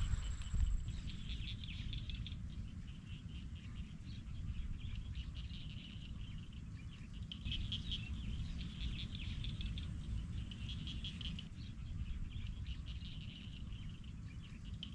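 Rural outdoor ambience: a high-pitched chirping chorus that swells and fades in clusters every few seconds, over a steady low rumble.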